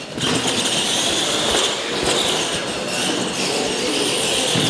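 Two Clod Buster-style RC monster trucks racing side by side, their electric motors whining steadily at speed.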